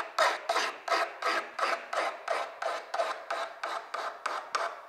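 A hand file rasping across the edge of a small metal varnish scraper in quick, even strokes, about three a second. It is sharpening the edge at about 45 degrees to raise a burr.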